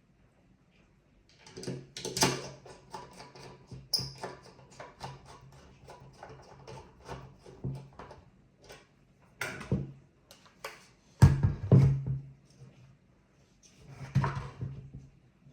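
Hands handling small computer hardware: a long run of quick plastic and metal clicks and rattles, then a few louder knocks and clatters near the end, over a faint steady low hum.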